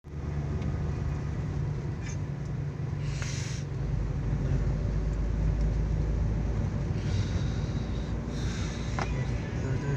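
Steady low rumble of a moving car heard from inside the cabin, engine and tyre noise, with brief hissing swells at about three seconds and again from about seven to eight and a half seconds.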